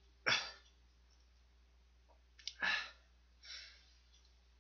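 A man breathing out in sighs: a strong exhale just after the start, another about two and a half seconds in, and a fainter one soon after. It is the heavy breathing of someone recovering from the burn of very spicy instant noodles.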